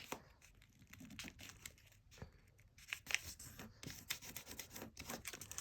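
Sheet of paper being folded and creased by hand, with faint irregular crinkling and soft crackles.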